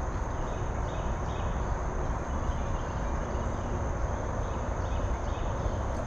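Steady rush of flowing river water, with insects droning in a constant high note and faint repeated chirps over it.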